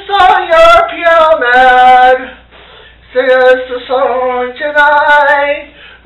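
A man singing without accompaniment, in long held notes, in two phrases with a short break about two and a half seconds in.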